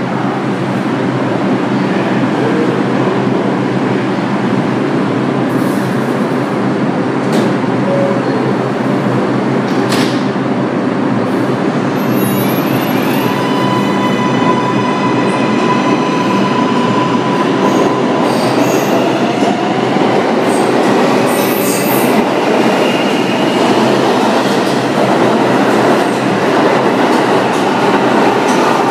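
New York City Subway R142-series train pulling out of the station. A steady rumble with a few clicks gives way, about halfway through, to a whine of its traction motors rising in pitch in several tones together as it accelerates, over the running noise of wheels on rail.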